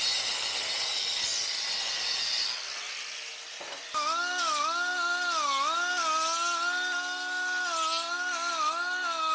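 A rasping abrasive rub, then about four seconds in a small power tool starts and runs with a steady whine whose pitch dips and recovers again and again as it is loaded.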